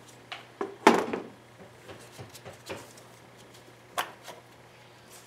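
A few separate clicks and knocks of hands handling a VTEC solenoid and working its plastic wiring connector in an engine bay, the loudest a clunk about a second in. A steady low hum runs underneath.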